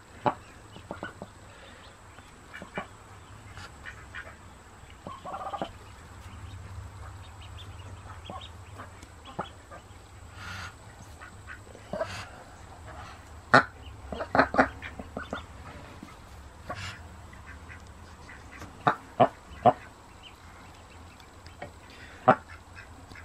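Golden 300 hybrid mother duck on her nest giving short, sharp quacks and calls at irregular intervals, several in quick succession about halfway through and again near the end. She is a protective broody duck warning off someone close to her ducklings.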